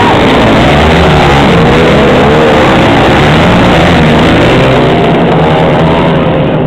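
A pack of flat-track racing motorcycles running past close by, loud, their engine notes rising and falling as the riders work the throttle through a turn.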